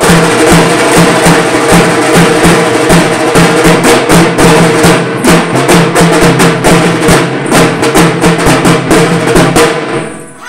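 A band of shoulder-slung drums playing a fast, dense rhythm, many strikes a second, loud throughout. The drumming falls away just before the end.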